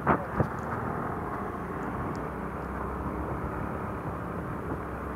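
Yamaha motor scooter running at low riding speed: a steady engine hum mixed with road noise, heard from the rider's seat.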